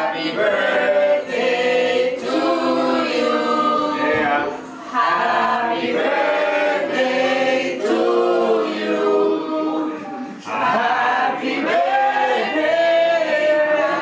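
A group of people singing a birthday song together in Spanish, in long held notes, with short breaths between phrases about four and a half and ten and a half seconds in.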